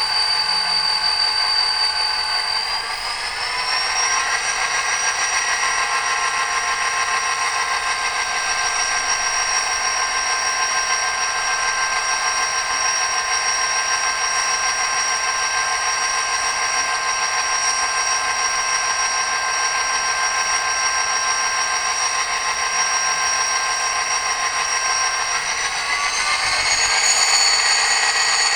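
Recorded EMD 16-645E3B V16 diesel prime mover of a GP40-2 locomotive running, played back through a LokSound 5 sound decoder's small speaker with no deep bass. The engine hum steps up in pitch about three seconds in, holds steady, then steps up again and grows a little louder near the end, as the throttle is notched up.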